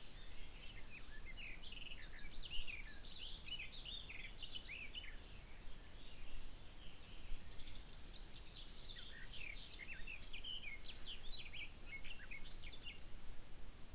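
Woodland birdsong: quick high chirps and trills in two long bouts, the first about a second in and the second starting around the middle, over a steady low background hiss.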